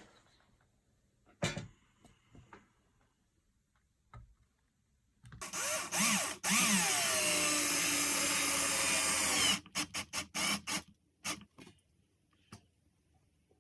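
Power drill running for about four seconds, its motor speed shifting, then pulsed in a quick series of short bursts. A few faint clicks come before and after.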